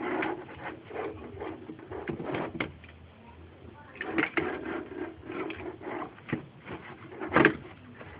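Light plastic clicks and taps from hands handling a model truck and working its small opening doors and hatch. The taps come irregularly, with one sharper click near the end.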